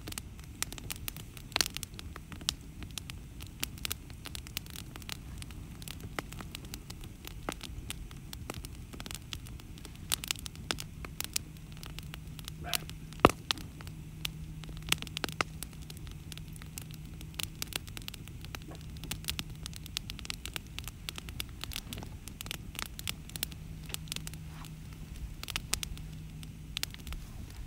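Wood campfire burning and crackling with rapid small pops and snaps, one sharper pop about halfway through. A faint, steady low hum sits underneath through much of the second half.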